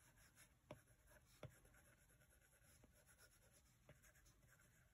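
Near silence, broken by a few faint taps and strokes of a stylus tip on the iPad's glass screen during digital shading.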